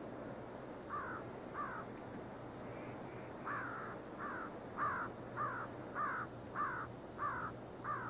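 A crow cawing: two caws about a second in, then a run of about eight caws roughly every half second, over a low steady hum.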